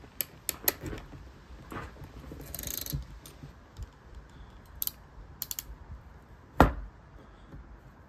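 Hand crimping tool clicking in a series of sharp ticks as its ratchet works the jaws onto an Anderson connector contact on the cable end, with a brief rustle of handling near three seconds and one louder snap about six and a half seconds in.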